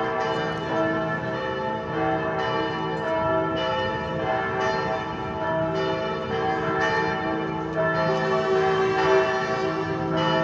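Several church bells ringing together in a continuous peal, their tones overlapping, with new strokes coming about once a second.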